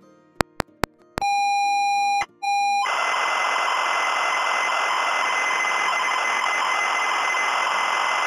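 ZX Spectrum tape-loading signal: a few short key clicks, then a steady leader tone for about a second, a brief break and a short second tone. About three seconds in, the harsh, continuous data screech of the loading screen begins and runs on.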